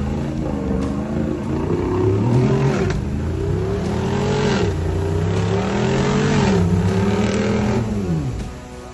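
A 4x4 engine revs repeatedly under load in mud, its pitch rising and falling several times, then dropping off near the end.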